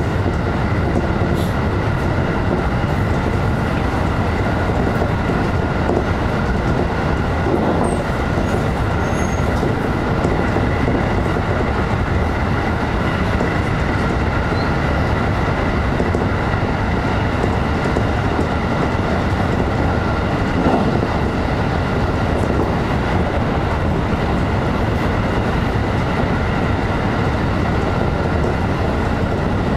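JR electric train running at speed, heard from inside the front car: a steady rumble of wheels on rail with a faint rhythmic clatter and a steady high whine over it.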